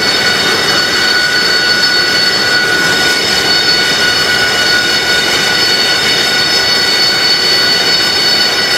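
AV-8B Harrier II's Rolls-Royce Pegasus turbofan running steadily at ground idle: a high whine of several tones over a constant rush of jet noise.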